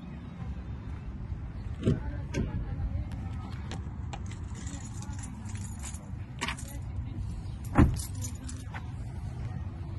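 Handling noise from a hand-held phone: fingers rubbing and tapping near the microphone, giving scattered clicks and scrapes and two sharper knocks, about 2 s in and near the end, over a steady low wind rumble on the microphone.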